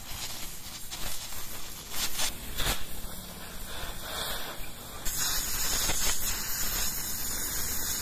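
Stick (shielded metal arc) welding: the electrode's arc crackles and hisses steadily with sharp pops as threaded fittings are welded onto the steel tank. About five seconds in the sound jumps louder and brighter as a new weld starts.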